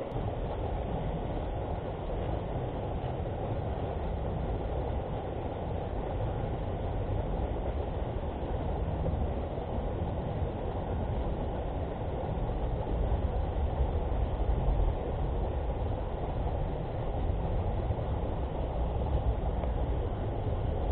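A steady low rumbling noise with no distinct events, a little louder in the second half.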